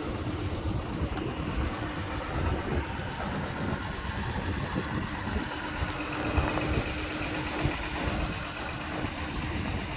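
Wind blowing hard across the microphone in a ground blizzard, gusting unevenly, over the steady hum of an idling engine.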